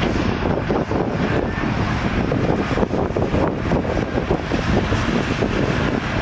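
Heavy diesel earthmoving machinery running steadily, a continuous rumble with no distinct knocks or pauses.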